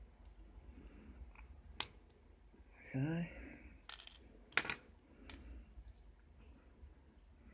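A few sharp metallic clicks and clinks as a euro lock cylinder and lock-picking tools are handled. The loudest is a quick double clink just past the middle.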